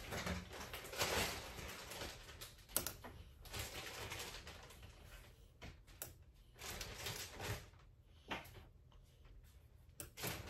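Rustling, with scattered light clicks and knocks, as yarn and other items are handled and set on shelves.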